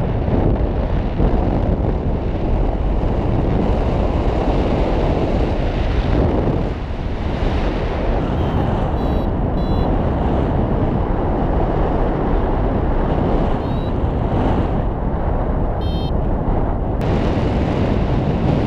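Airflow buffeting the microphone of a paraglider in flight: a loud, steady rush of wind noise. Faint short electronic beeps from a flight variometer come through a few times.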